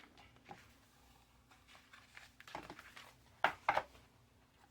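Paper being handled and folded by hand: soft rustles and small taps, with two sharper paper snaps or taps close together about three and a half seconds in.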